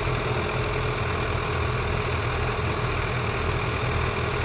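1995 John Deere 6230's 4.5-litre four-cylinder diesel engine running steadily under load, pulling a two-furrow reversible plough through the soil.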